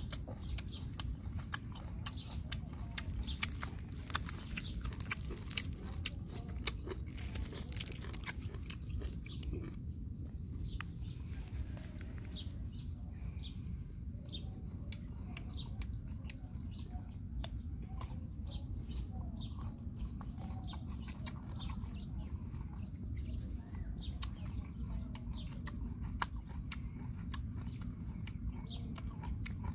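Close chewing of crisp green mango slices, many short crunchy clicks, over a steady low rumble, with birds chirping faintly.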